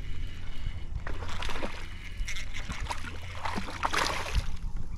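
Water splashing and sloshing in irregular bursts as a hooked largemouth bass is fought at the surface and reeled in, over a low steady rumble.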